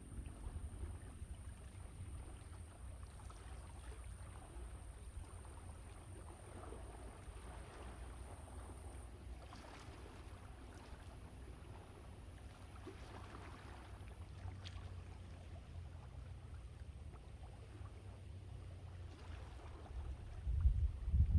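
Sea waves washing onto the shore in soft swells every few seconds, over a steady low rumble of wind on the microphone. A stronger gust comes near the end.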